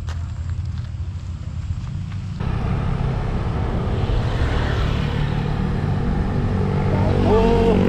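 Wind buffeting the action-camera microphone and tyres rumbling as a bicycle is ridden, the rush getting louder and fuller about two and a half seconds in.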